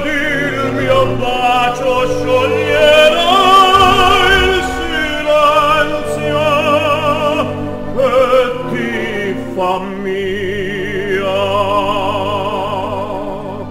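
Operatic singing: a solo voice with wide vibrato holding long, soaring notes over steady accompaniment.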